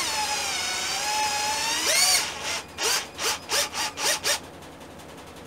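Mondial cordless drill/driver on its lowest speed setting, its motor whining steadily as it drives a large screw into wood. The pitch sags under load and then rises sharply about two seconds in. It is followed by a run of about seven short motor bursts.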